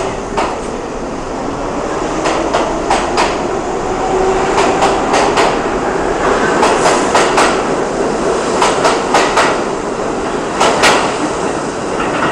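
A train of R32 stainless-steel subway cars pulling out and accelerating past: steel wheels clacking over rail joints in quick groups, over steady running noise with a rising whine underneath.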